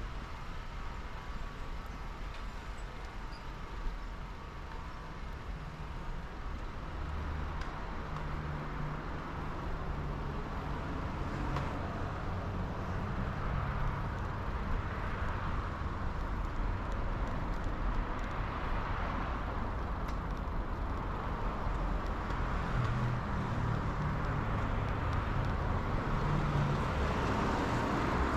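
Outdoor street ambience: a steady rumble of road traffic that slowly grows louder, swelling now and then.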